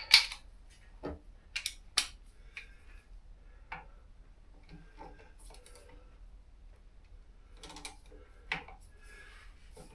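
Scattered sharp metallic clicks and knocks of hand tools and parts being handled while working on a motorcycle's front wheel and brake calipers. The loudest come right at the start and again around one to two seconds in.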